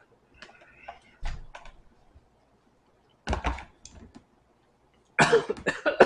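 A plastic bowl knocks twice, with a low thud, against a stone tabletop. Near the end comes a louder burst of mouth and voice sounds from the man eating the noodles.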